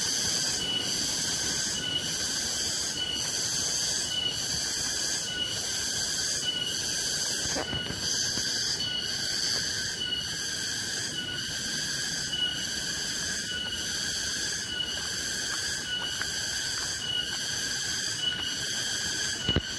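A chorus of cicadas in tropical forest, keeping up a shrill, high-pitched drone that pulses evenly about twice a second.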